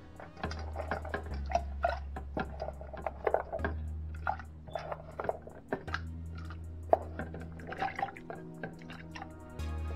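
Finely cut coconut pieces dropped by hand into water in a blender jar: a run of irregular small plops and splashes, with one sharper click about seven seconds in.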